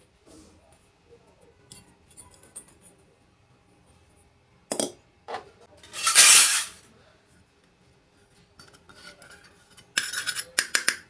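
Small steel pieces of a miniature toy kitchen set clinking and being set down: scattered light knocks, a short loud burst of rustling noise midway, and a quick run of clinks near the end.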